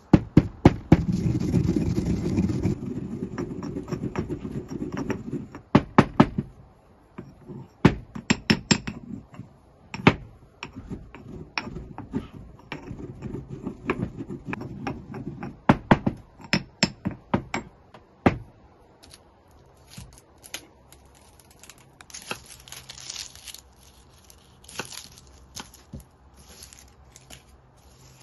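Stone pestle grinding and pounding spices in a stone mortar. It starts as a steady grinding rub for about six seconds, then turns to a run of sharp knocks mixed with grinding, which stops about eighteen seconds in. After that only quieter scattered clicks and rustles remain.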